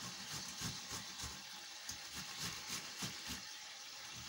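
Ripe tomatoes being grated on a metal box grater: a run of short, wet rasping strokes, about three a second.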